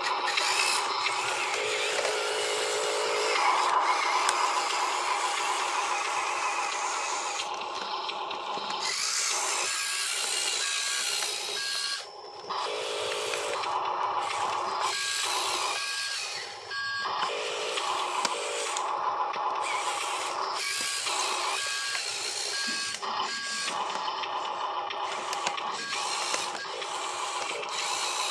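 Small electric motors and gears of radio-controlled construction models, an RC excavator and dump truck, whining in short runs that start and stop every second or few.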